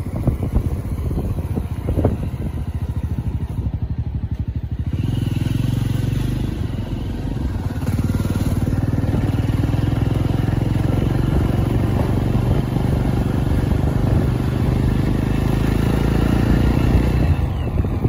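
Engine and road noise from a moving vehicle. A fast low pulsing rumble for the first few seconds turns into a fuller, louder steady drone from about five seconds in.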